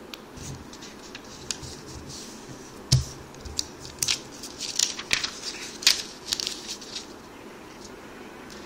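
Origami paper being folded and creased by hand: short, crisp crackles and rustles as the folds are pressed down, with a thump against the table about three seconds in.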